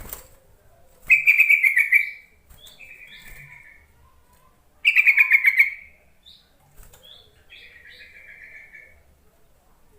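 Yellow-vented bulbul (trucuk) calling: four chattering phrases, each opening with a short higher note. Loud phrases come about a second in and midway, with softer answering phrases between them.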